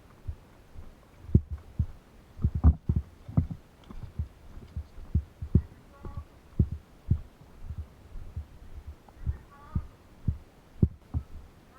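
Irregular muffled low thumps, one or two a second, the strongest about one and a half and two and a half seconds in: footsteps and knocks picked up by a camera worn on the body.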